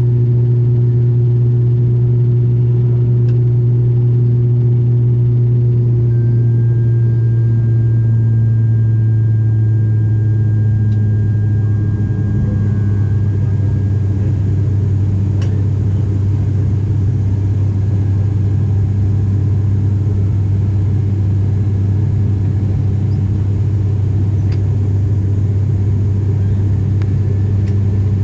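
Turboprop airliner's engines and propellers droning steadily in the passenger cabin: a deep, even hum with overtones that drops a little in pitch partway through.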